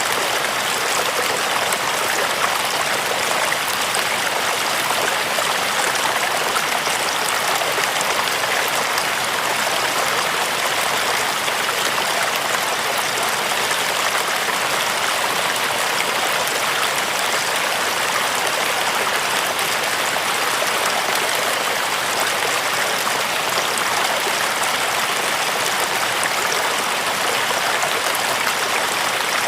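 River water running with a steady, even rushing sound that holds unchanged throughout.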